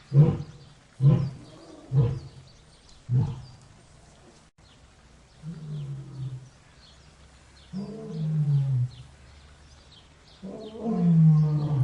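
Lion roaring: four short, loud grunts about a second apart, then three longer calls that each fall in pitch, the last the loudest.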